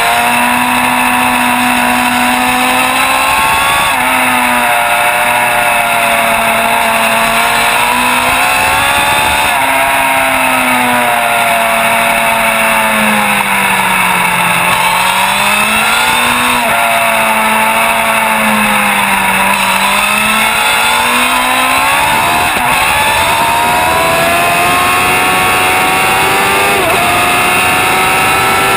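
Racing motorcycle's engine heard from on board at full race pace: its pitch dips and rises through a run of corners, then climbs steadily as the bike accelerates hard onto a straight, with a gearshift near the end. Wind rush on the microphone runs underneath.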